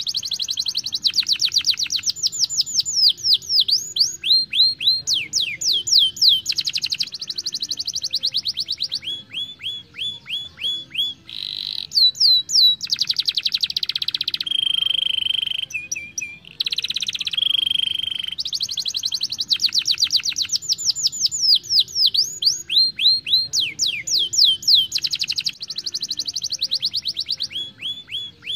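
Young domestic canary singing a long, fast rolling song. It goes phrase after phrase: rapid runs of repeated down-sweeping notes, buzzy trills and level repeated notes, changing every second or two with only brief breaks.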